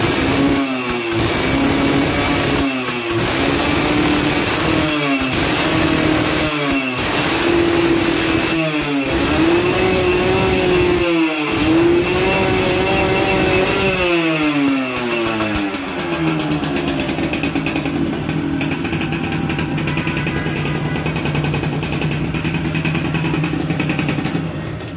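Yamaha Yaz two-stroke single-cylinder engine revved in a string of quick throttle blips, then held up for about two seconds before dropping back to a steady idle for the last several seconds.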